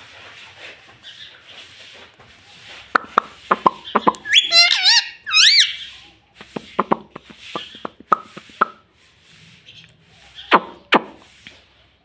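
Indian ringneck parakeet chattering: short clicks and mumbled sounds, a run of rising-and-falling whistles about four to six seconds in, and two short, sharp calls near the end.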